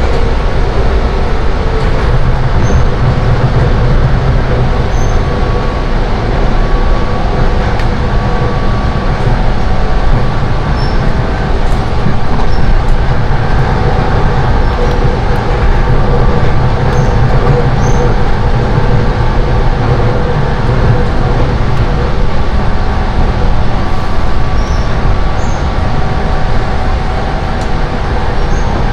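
Running noise of a Seibu 10000 series Red Arrow limited express train at speed, heard inside the passenger car: a loud, steady rumble of wheels on rail and running gear, with faint whining tones that drift slightly in pitch.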